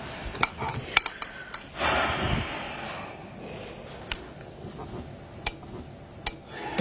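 Tea glasses, spoons and plates clinking at a breakfast table: scattered sharp clinks, with a louder rustling noise lasting about a second around two seconds in.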